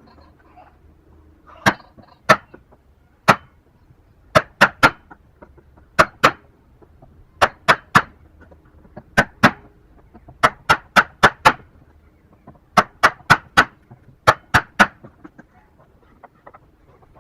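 Sharp knocks of hand-tool blows on wood, coming in quick runs of two to five strokes with short pauses between runs, as in joint-cutting work.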